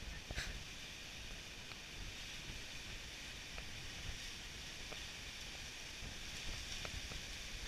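Strong wind blowing steadily through palm fronds, a continuous rushing hiss over a low rumble of wind buffeting the microphone. A single sharp click about half a second in.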